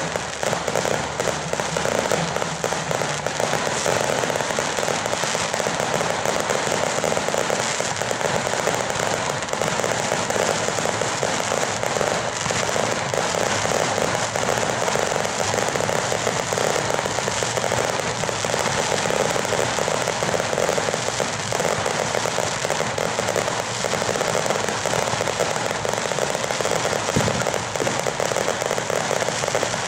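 Ground-level firecrackers going off in a dense, continuous crackle of rapid bangs. Near the end an aerial firework shell bursts with a deeper boom.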